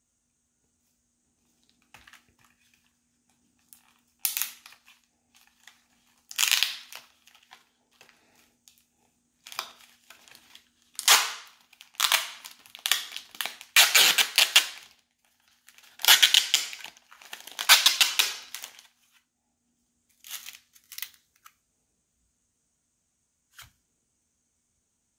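Thin clear plastic wrapper on a mochi tray crinkling and tearing as it is peeled open by hand, in a series of short irregular rustling bursts, loudest in the middle. A single small click near the end.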